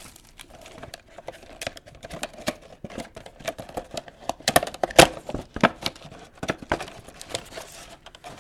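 Clear plastic packaging of a trading-card box being handled and pried at: a run of sharp plastic clicks and taps, loudest about five seconds in.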